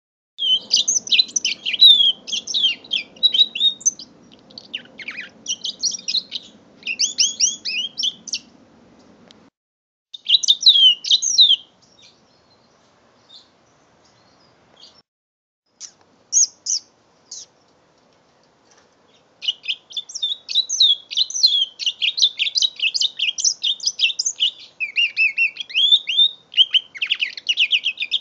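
A five-month-old mule canary, a canary hybrid, singing in quick trilled and chirping phrases. The song comes in bursts with near-quiet gaps of a few seconds around the middle, then runs on in a long, fast stretch near the end.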